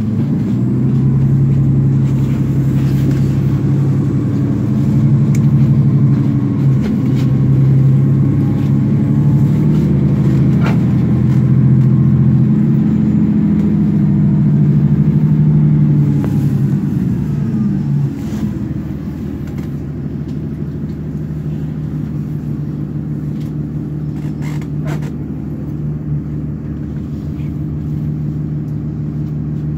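The Cummins ISL inline-six diesel of a 2009 Nova Bus LFS, heard from inside the passenger cabin as the bus drives. It runs loud and steady under load for about the first sixteen seconds, then eases to a quieter, lower hum.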